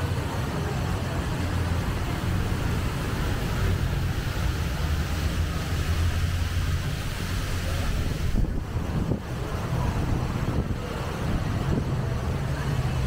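Steady low rumble of city street traffic, with wind buffeting the microphone.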